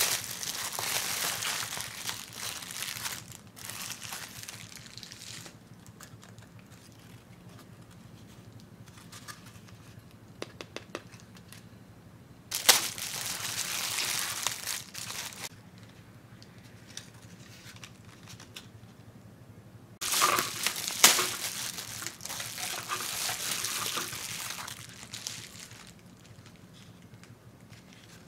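Plastic bubble wrap crinkling as it is pulled open by hand, in three bouts: at the start, about 13 seconds in, and about 20 seconds in, with quiet handling between.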